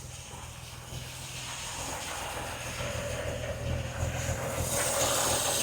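Vauxhall Royale's 2.8-litre straight-six idling with its air cleaner off while the carburettor mixture is being leaned off. A steady engine note runs under a hissing intake sound and a high whine, and both grow louder over the second half.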